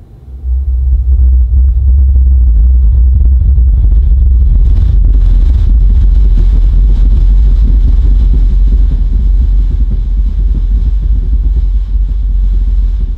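Dayton Audio CS1200 12-inch subwoofer playing a film soundtrack's deep bass rumble on its own, very loud and sustained, pushing a room SPL meter to about 101 dB. It is set to its maximum clean output before distortion.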